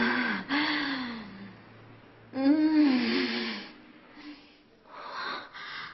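A woman moaning with pleasure: two drawn-out moans that bend up and down in pitch, the second about two seconds in, then a few soft breathy gasps near the end.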